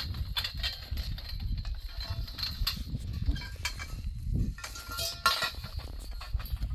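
Bundle of plastic tent poles knocking and clattering as they are gathered up, over a steady low rumble. A brief animal bleat comes about five seconds in.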